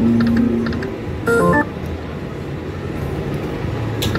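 Electronic sound effects from an Aruze Cash Locomotive pokie machine as its reels spin: a held low tone for about a second, then a quick run of stepped electronic beeps, and a sharp click near the end. A steady low hum runs underneath.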